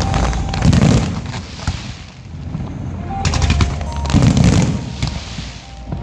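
Aerial fireworks going off: rapid volleys of sharp cracking reports mixed with deep booms, in two clusters, one near the start and one from about three seconds in.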